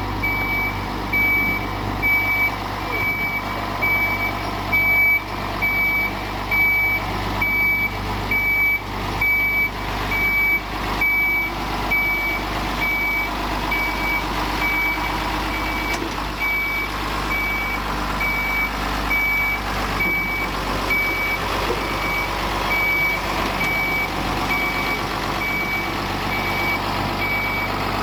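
Reversing alarm on a Mercedes-Benz Unimog road-rail truck beeping steadily about once a second, over the running diesel engine as it shunts a tram.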